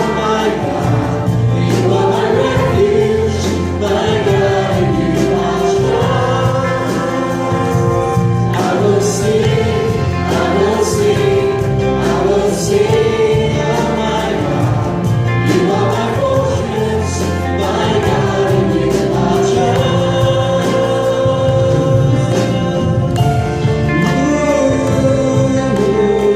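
Gospel worship song sung by a group of voices with instrumental backing, carrying on steadily.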